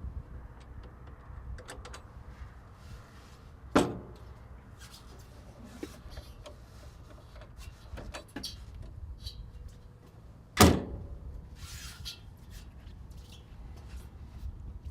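Metal access doors on an excavator being shut and latched: two loud bangs, one about four seconds in and a louder one near eleven seconds, with lighter clicks and knocks between, over a steady low rumble.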